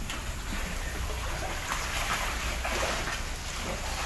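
Water sloshing and lapping softly against a small wooden boat and a swimmer beside it, in gentle washes about once a second, over a steady low rumble.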